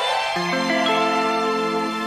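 Instrumental background music with held, layered notes; a new, lower chord comes in about half a second in.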